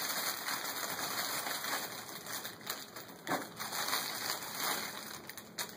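Clear cellophane gift wrap crinkling and rustling in irregular crackles as small hands handle and pull at it.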